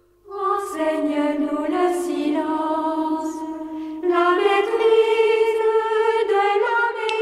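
Choir singing a hymn, coming in about a quarter second in and growing louder about four seconds in.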